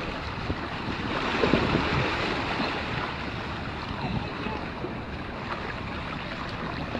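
Wind rushing over the microphone with the steady wash of surf behind it.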